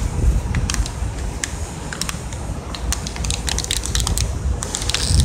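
Thin plastic water bottle crinkling and crackling as it buckles in while being chugged, a quick irregular run of sharp clicks, over low wind rumble on the microphone.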